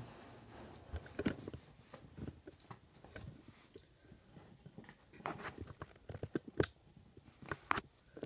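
Cats tussling in and around a cardboard box: irregular scratching, scraping and knocking of paws and bodies against the cardboard, with a cluster of sharper knocks past the middle.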